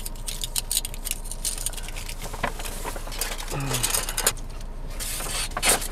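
Rustling and small clicks and clinks of takeaway food packaging and leftovers being handled and gathered up, an irregular run of many small sharp sounds.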